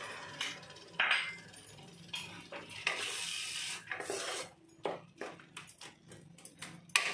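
A spatula stirring and scraping a thick, wet masala around a nonstick kadai. It gives irregular scrapes and, in the second half, a run of sharp clicks where the spatula knocks against the pan.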